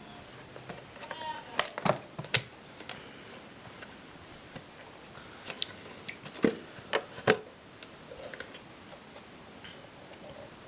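Scattered sharp clicks and knocks, about a dozen, in two clusters, with no motor running.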